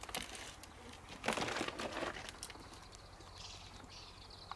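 Rustling and footsteps of someone walking over rock and through dry brush, with a plastic bag crinkling, loudest about a second in. Faint bird chirps near the end.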